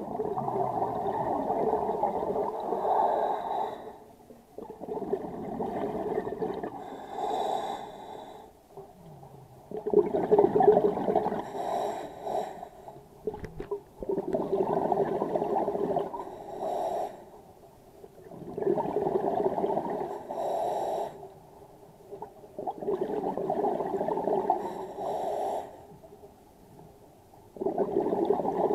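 Scuba diver breathing through a regulator: a gurgling burst of exhaled bubbles every four to five seconds, each lasting a few seconds, with a short faint hiss of inhalation in the gaps between them.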